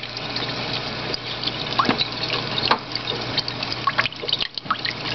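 Water running steadily from a kitchen tap and splashing over an egg and fingers into a stainless steel sink.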